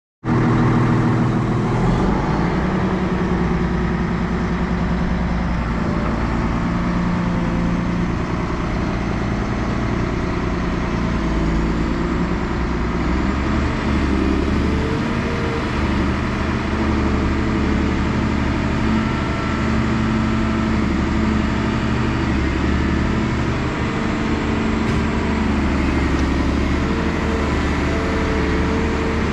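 Volvo EC360B tracked excavator's D12D diesel engine running steadily, with tones in its sound that shift in pitch now and then.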